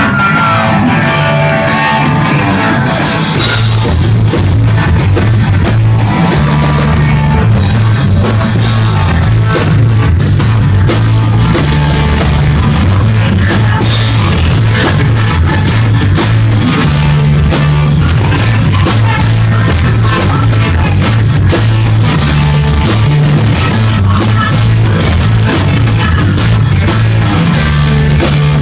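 Rock band playing live: electric guitar, bass and drum kit, loud and steady throughout.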